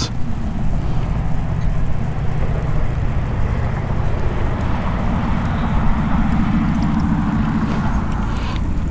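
A motor vehicle passing: a steady rumble that swells through the middle and eases near the end.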